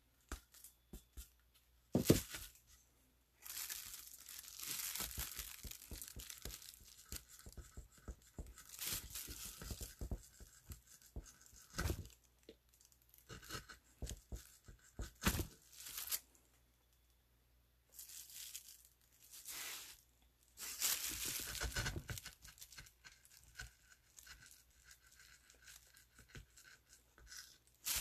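Hand carving gouge cutting into a woodblock in irregular runs of short scraping, tearing strokes, with a sharp knock about two seconds in. A plastic sheet crinkles close to the microphone.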